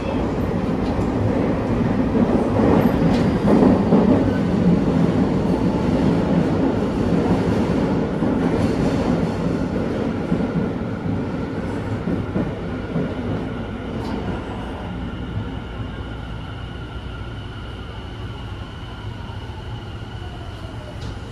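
Tobu 50000 series electric train heard from inside the car, running in a tunnel and slowing for a station. A heavy wheel-and-rail rumble fades as it decelerates, while steady high electrical tones and a whine that falls in pitch from the traction motors come through under braking near the end.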